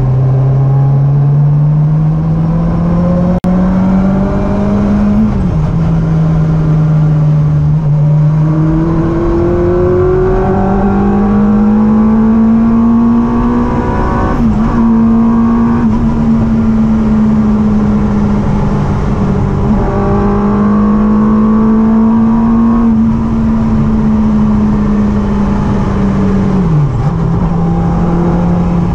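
Yamaha R1 inline-four motorcycle engine in a classic Mini, heard from inside the cabin as the car is driven hard. The engine note climbs and then drops sharply at a gear change about five seconds in. It climbs again and holds steady, dips briefly about halfway, and falls once more near the end.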